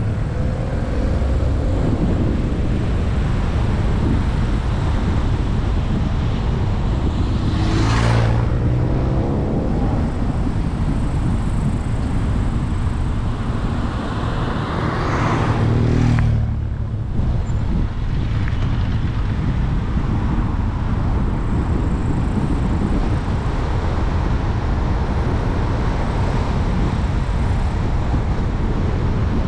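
Steady tyre and wind noise of a car driving on a mountain road, with two other vehicles passing close by about 8 and 16 seconds in, each dropping in pitch as it goes past.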